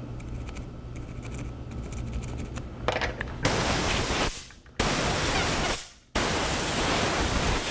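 Faint toothbrush scrubbing on a circuit board, then three sharp blasts of air hissing, each about a second long with short gaps, blowing off the alcohol used to clean the freshly soldered charging port.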